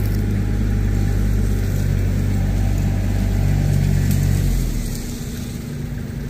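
Tow truck's engine running steadily at raised revs, a loud low hum that drops back to a quieter, lower running about four and a half seconds in.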